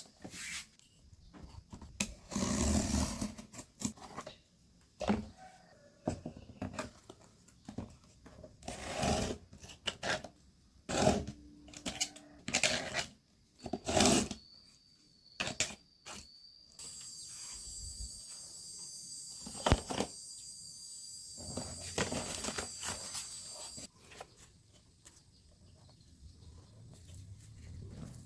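Handling noises from cardboard and small parts: scattered taps, knocks and short scrapes. About halfway through a small high-speed DC motor starts and whines steadily for about nine seconds, then cuts off suddenly.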